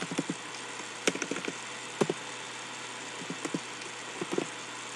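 Computer keyboard keys clicking as a few keystrokes are typed at an uneven, unhurried pace, over a steady faint hiss.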